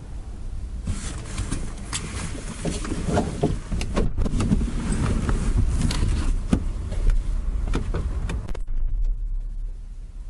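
Driver climbing out of a Toyota AE86: rustling, clicks and knocks of the door and seat, ending with the driver's door shut about eight and a half seconds in. After that only a steady low rumble is heard from inside the closed cabin.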